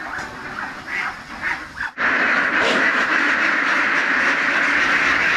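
A flock of several hundred itik (Philippine laying ducks) quacking all at once in a loud, dense, continuous din. Before it starts sharply about two seconds in, only scattered quieter calls are heard.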